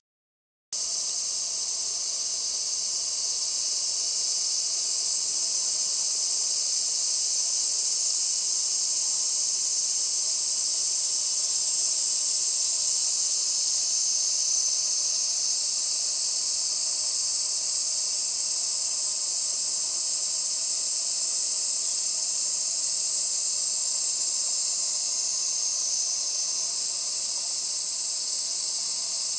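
Cicadas calling in chorus: a steady, high-pitched buzzing hiss that begins about a second in and swells louder a few times as individual cicadas join in.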